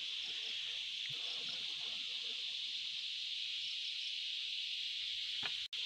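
Steady, high-pitched insect chorus droning without a break, with a few faint short high peeps over it; the sound drops out for an instant near the end.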